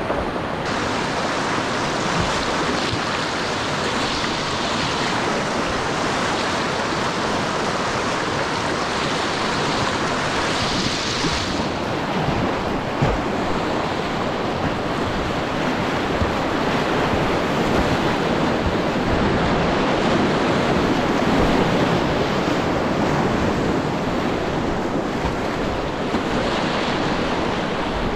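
White-water river rapid: water rushing and churning over rocks close to the microphone, a steady, full noise.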